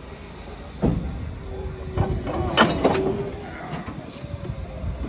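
Train running on rails: a low rumble with a sharp clank about a second in and more metallic knocks a second or two later, with a brief steady tone over them.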